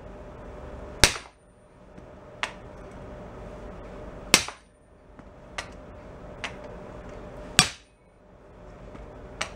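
Sledgehammer striking the bent steel foot-peg crossbar and skid plate of a Honda CT70 to beat it straight. Three heavy blows come about three seconds apart, each followed by a lighter clank as the bar rattles.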